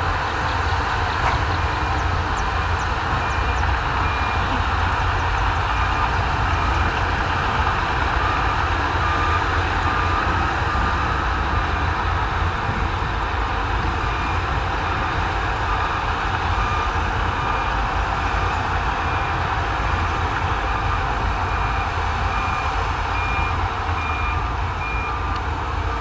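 Heavy earthmoving machinery's diesel engines running steadily, with a reversing alarm beeping repeatedly through much of it.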